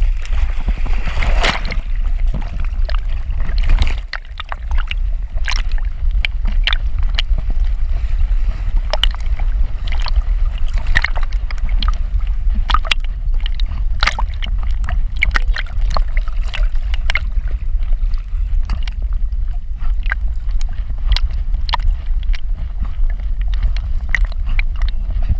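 Sea water sloshing and splashing around a swimming dog, heard through a GoPro strapped to her back. It is a steady low rumble with frequent sharp splashes and clicks as she paddles.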